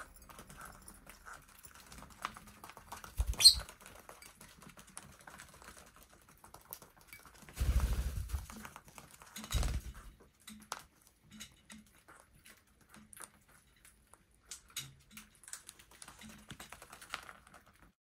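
Light, irregular clicks and taps, with three louder low thumps about three and a half, eight and ten seconds in.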